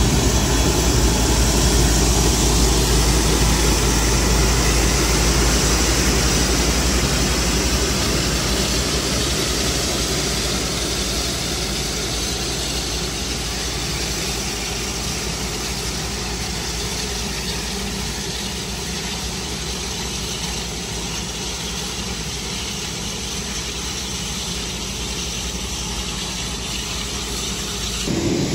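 Jet aircraft engine noise on the ramp: a steady, loud roar that slowly grows quieter.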